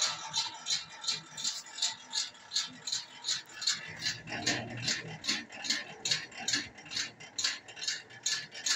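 Table saw blade-raising mechanism clicking as its handwheel is cranked by hand: an even rattle of about three clicks a second while the stationary blade rises through the table.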